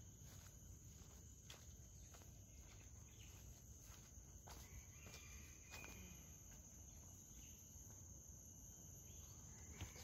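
Near silence: faint outdoor ambience with a steady high-pitched insect drone and a few faint footstep clicks.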